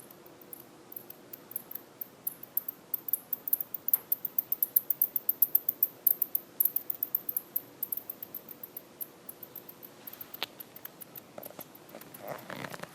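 East Asian free-tailed bat giving its echolocation calls, low enough for human ears: a rapid train of short, high-pitched ticks, about five or six a second, that swells and then fades as the bat passes. A brief rustling comes near the end.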